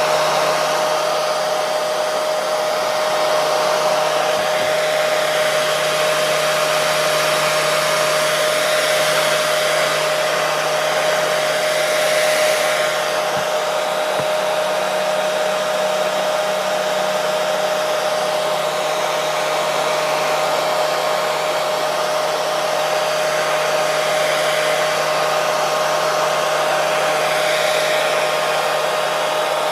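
Hair dryer running steadily: a continuous rush of blown air with a constant mid-pitched motor whine.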